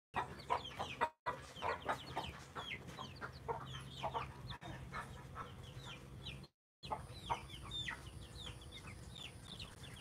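A brood of Aseel chicks peeping: many short, falling cheeps overlapping continuously, with the sound cutting out briefly twice.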